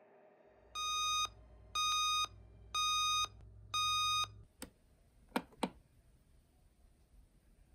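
Digital clock radio alarm beeping four times, each beep about half a second long and about a second apart, over a low hum. Three sharp clicks follow, the last two close together.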